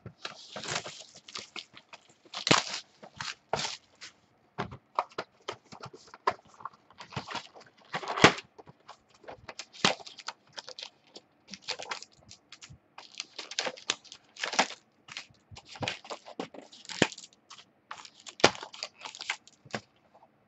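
Trading-card pack wrappers being torn open and crinkled by hand: irregular crackling and tearing, with scattered sharp clicks.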